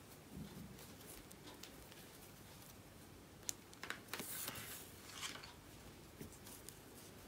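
Faint handling sounds of crocheting with a fine metal hook in cotton thread: a small sharp click about three and a half seconds in, then a brief patch of rustling and light clicks as the work is handled, fading away after about five seconds.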